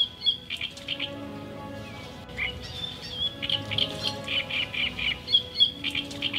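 Birds chirping in quick runs of high notes and short whistled glides, over soft music with long held tones.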